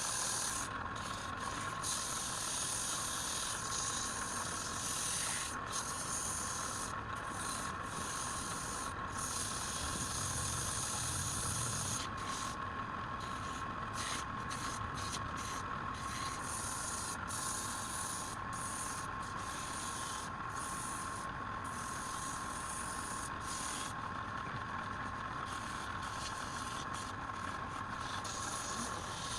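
Wood lathe running with a steady whine, and a continuous rubbing sound of a tool or abrasive working the spinning wood.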